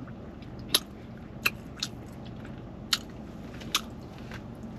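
Person chewing and biting into a burrito, with a handful of sharp wet mouth smacks spread through, over a low steady hum.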